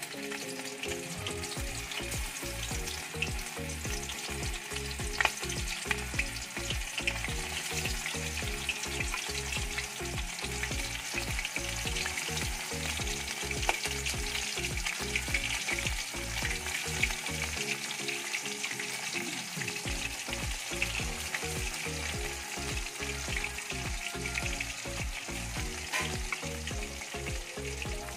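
Besan-battered lota fish (Bombay duck) pieces sizzling and crackling steadily in hot oil in a kadai, with more pieces slipped into the oil one by one.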